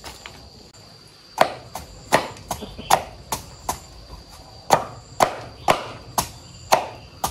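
A blade chopping green plant matter for fermented feed: a rapid series of sharp chops, about two to three a second, starting about a second and a half in, with a short pause midway.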